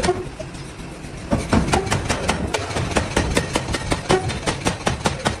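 Quick, sharp metal knocks, several a second, starting about a second and a half in, over a low machinery rumble, as from hammering or forging work on iron.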